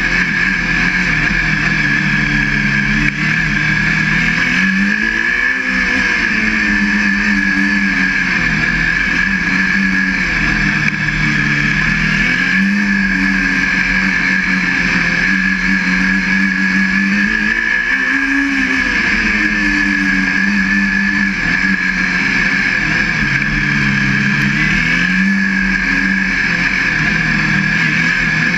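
Formula SAE race car's engine heard from on board the car, its revs rising and falling repeatedly as it accelerates and slows through a cone course, over a steady high whine.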